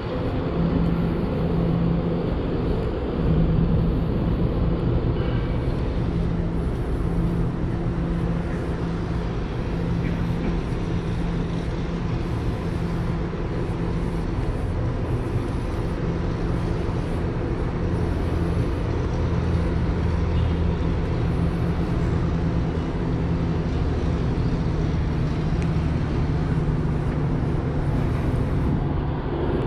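Steady low engine or machinery hum over outdoor city background noise, with no single event standing out; the low rumble swells a little about two-thirds of the way through.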